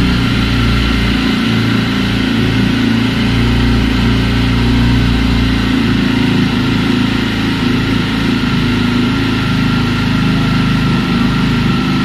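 Jawa motorcycle's single-cylinder engine running steadily close up, loud enough to read about 88–90 dB on a sound level meter.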